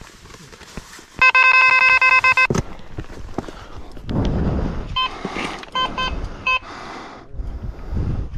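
Carp fishing electronic bite alarm going off in fast, continuous beeps from about one to two and a half seconds in, then a few broken beeps around five to six seconds in: a fish taking line. Rustling and low thumps of handling come in between.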